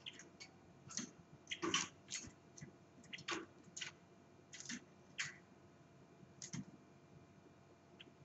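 Irregular light clicks and taps of a small caged bird moving about its wire cage, hopping on and off the perch and pecking at the feed cups, sometimes several taps in quick succession.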